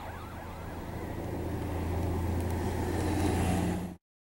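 Engine of a 1999 VW Passat 1.8 L turbo running just above idle, heard from inside the cabin as a steady low hum that grows louder over a few seconds, then cuts off abruptly near the end. A siren's wail fades out at the start.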